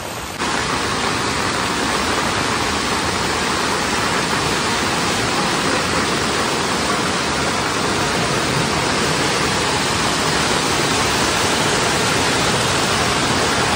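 Swollen, muddy flood stream rushing in spate: a steady, dense water noise that cuts in abruptly about half a second in.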